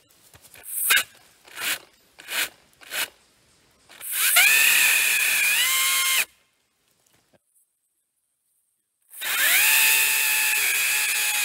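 Makita 36V (18V X2) brushless cordless pole saw with its chain running through a fallen log, a steady electric whine. It runs for about two seconds, rising in pitch just before it stops, then starts again about three seconds later and keeps running. Four short scuffing noises come before it in the first few seconds.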